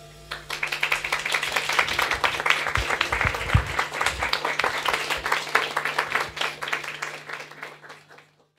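Audience applauding, starting just as the last flugelhorn note dies away; the applause fades out near the end.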